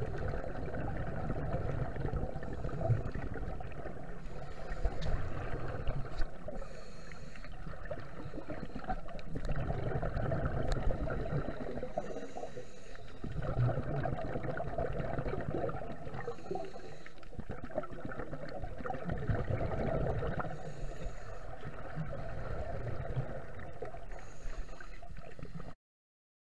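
Scuba regulator breathing underwater: a bubbling rumble of exhaled air swells every four or five seconds, with a short hiss between breaths. It cuts off abruptly near the end.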